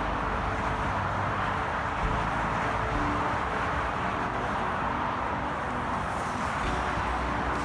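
Steady noise of heavy motorway traffic on the M25, many cars and lorries passing on the multi-lane carriageway below with no single vehicle standing out.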